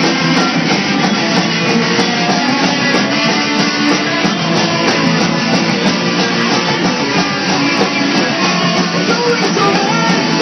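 Live rock band playing an instrumental stretch of a hard rock song, with no vocals: electric guitars, keyboard, bass and drums, loud and steady throughout.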